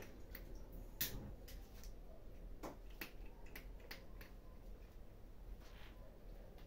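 Cats eating: faint, irregular clicks and crunches of chewing, a dozen or so, the sharpest about a second in, over a low steady hum.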